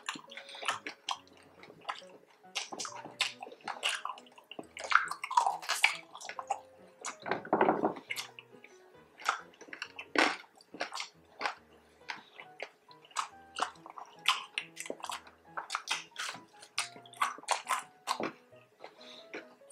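Close-up chewing of crispy pork belly: a run of sharp, irregular crunches and crackles of the hard crackling with wet mouth sounds, a few louder bites about five and eight seconds in. Light background music plays faintly underneath.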